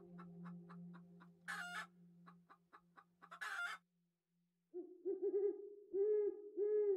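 Owl hooting: a run of short, low hoots, each rising and falling in pitch, a few quick ones then single ones about half a second apart, starting after a brief pause. Before that, two short harsh bird calls over faint rapid ticking and a low steady hum.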